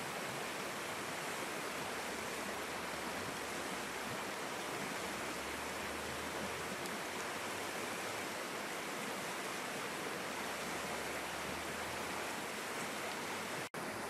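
River flowing over shallow rapids: a steady, even rushing of water, which cuts out for an instant near the end.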